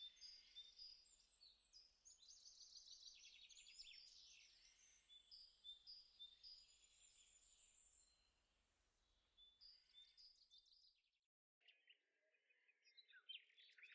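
Very faint birds chirping, with a rapid trill a couple of seconds in; the sound cuts out briefly about eleven seconds in and then resumes.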